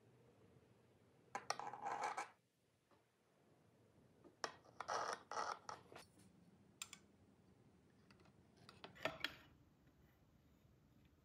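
A metal knife and a cake server scrape and click against a ceramic plate as a caramel flan is sliced and a slice is pried loose. The sounds come in a few short bursts of clicking and scraping.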